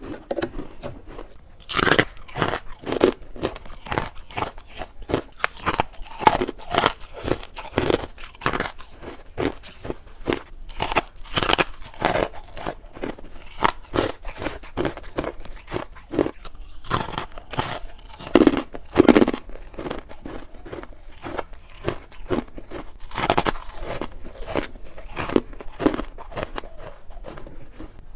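A person biting and chewing crisp freezer frost, a dense, irregular run of crunches several times a second, with a few heavier bites between.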